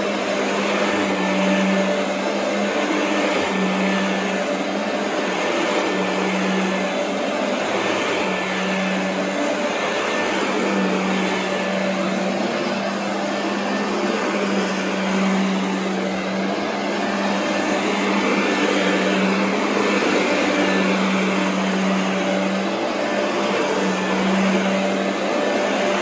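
Royal upright vacuum with a cloth bag running over carpet: a steady whir from its motor and brush roll, with a low hum that swells and fades every second or two as it is pushed back and forth.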